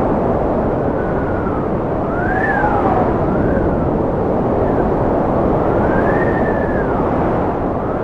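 Strong wind rushing steadily, with a whistling howl that rises and falls in pitch several times.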